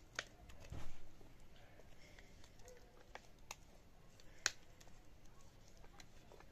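Ground lentil paste being scraped out of a steel mixer-grinder jar into a steel bowl: scattered light clicks and taps of a utensil against the metal, the loudest about four and a half seconds in, with a soft thump just under a second in.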